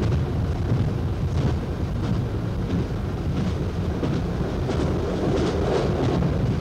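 Train in motion heard from inside the driving cab: a steady low rumble of the running train, with faint clicks here and there.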